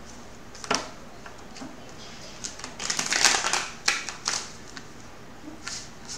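A deck of tarot cards being riffle-shuffled by hand: a single snap about a second in, then a quick burst of fluttering card clicks about three seconds in, followed by a few scattered taps as the deck is bridged and gathered.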